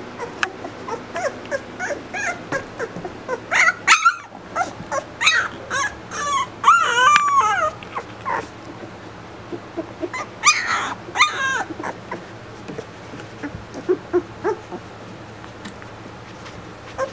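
Two-week-old Labrador retriever puppies whimpering and squealing in short, high, wavering cries. The cries come in clusters with pauses between, and a few light clicks fall in between.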